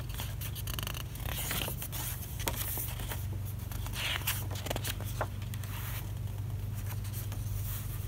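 Paper pages of a printed art booklet being turned and handled: irregular papery rustles and flaps, over a steady low hum.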